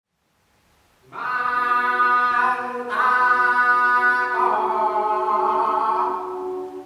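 Choir singing a cappella, holding three long chords one after another, coming in about a second after silence.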